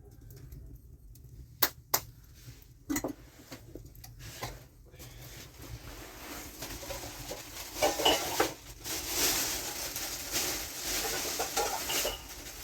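Dishes and utensils being handled: a few separate sharp clinks in the first seconds, then from about seven seconds a busier stretch of clattering and scraping.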